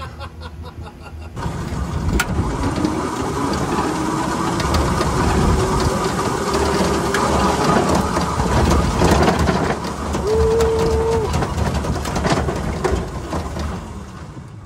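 1960s Electra King electric car driving over rough, cracked asphalt: its electric motor whines, rising as the car picks up speed, under heavy tyre and wind noise and rattling from the body. A short steady beep sounds about ten seconds in.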